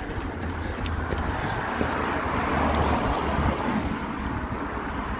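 Wind buffeting a phone's microphone while running, a steady low rumble with a rush of noise that swells and fades about two to three and a half seconds in.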